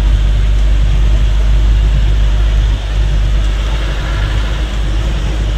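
Steady low rumble of a moving road vehicle's engine and tyres, heard from inside the vehicle while driving.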